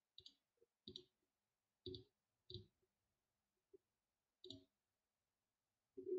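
Computer mouse clicking: about five faint, separate clicks spaced a second or so apart over near silence.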